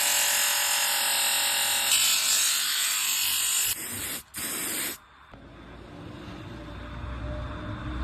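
A small electric power tool's motor running with a buzzing whine, cutting out about four seconds in, followed by a quieter low rumble that slowly grows.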